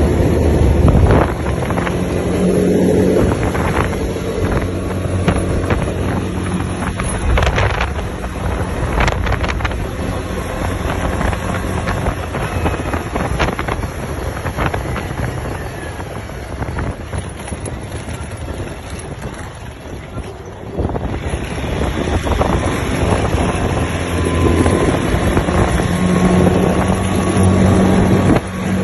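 ATV engine running on the move, with wind rushing over the microphone. The engine eases off about two-thirds of the way through, then picks up sharply again and runs harder near the end.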